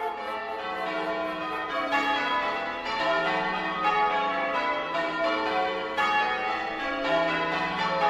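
Church bells pealing for a wedding, many bells struck one after another with their tones overlapping.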